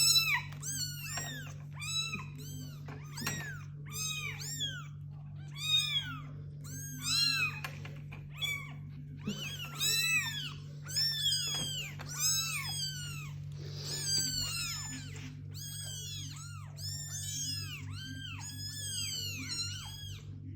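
Two-week-old kittens meowing, many high, thin cries a second that rise and fall in pitch and overlap one another, over a steady low hum.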